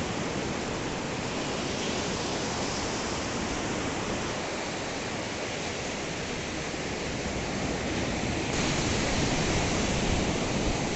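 Ocean surf washing onto a sandy beach, a steady rush of noise that grows louder about eight and a half seconds in.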